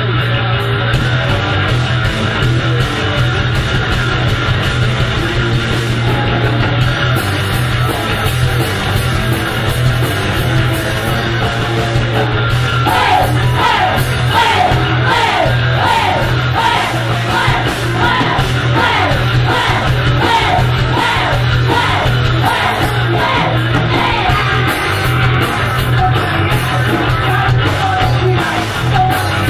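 Punk rock band playing live: electric guitar, bass guitar and drums, loud and steady. From about halfway in, a short falling figure repeats a little over once a second.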